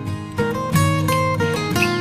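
Background music: a plucked acoustic guitar playing a run of notes.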